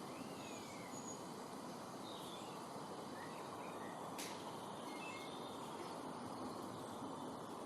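Faint outdoor nature recording: a steady hiss of background noise with a few faint, high bird chirps scattered through it and a single sharp click about four seconds in.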